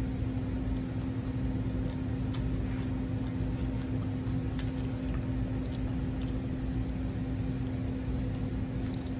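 Steady low mechanical hum with one constant tone, from an appliance or fan running in the room, with faint scattered clicks of someone chewing pizza.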